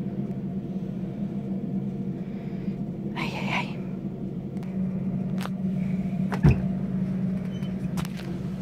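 Steady low mechanical hum, with a brief rustle about three seconds in and a few clicks and knocks, the loudest a thump about six and a half seconds in.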